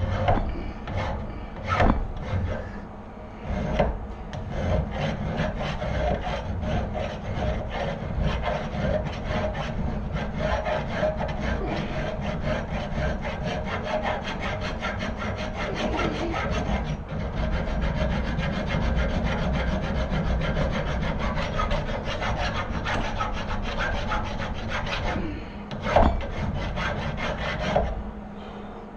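Arc welder crackling steadily as weld passes are laid down to build up a worn lawn mower axle. The arc strikes and stops a few times in the first seconds, then runs continuously, with a sharp knock near the end.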